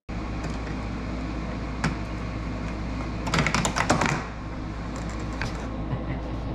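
Light clicks and a short burst of rapid clicking and rattling about halfway through, as hands work a carbon fiber grille insert and its screws inside a car's front bumper opening, over a steady low hum.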